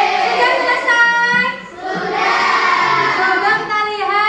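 Children singing a song together, with long held notes that slide in pitch.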